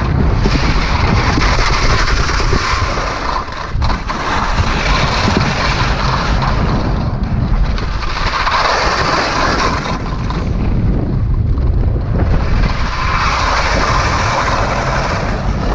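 Skis scraping and hissing over snow in a few long turns, the hiss swelling and fading three times, over a steady low rumble of wind buffeting the microphone at speed.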